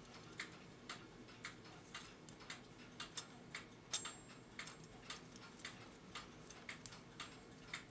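Mechanical clock ticking faintly and evenly, about two ticks a second.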